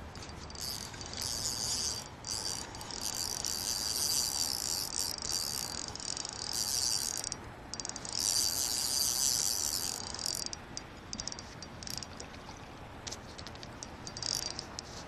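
Fishing reel buzzing in spurts as line is wound in on a hooked fish, a high mechanical whir that starts and stops several times.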